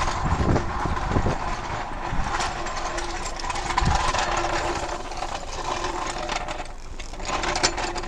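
A motor or engine running with a steady mechanical hum, and a few footsteps in the first few seconds.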